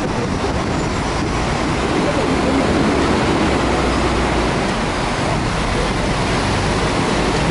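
Busy city-avenue traffic noise: a steady rumble and hiss of passing vehicles on wet road, with faint voices of passers-by.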